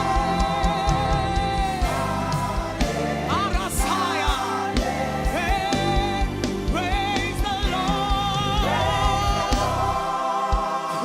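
Gospel worship music: a lead voice holding long notes with vibrato over a band with a steady drum and bass beat.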